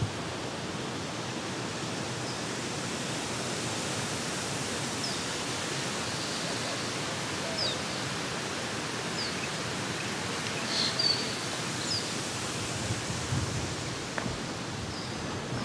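Steady rush of flowing water, with short high bird chirps scattered through it.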